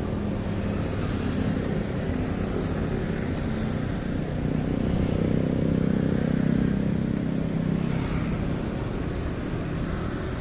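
Motorbike and car engines in city street traffic, a steady engine hum that grows louder about five seconds in and eases after eight.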